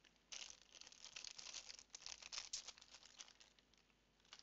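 Small clear plastic bag crinkling quietly as it is handled, for about three seconds, with a light click near the end.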